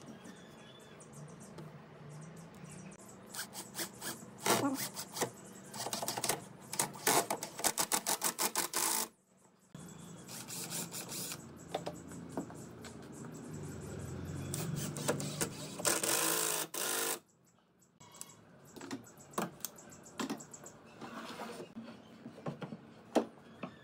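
Cordless impact driver driving screws into pine boards in several bursts of rapid hammering, with knocks and clatter of boards and clamps being handled between them.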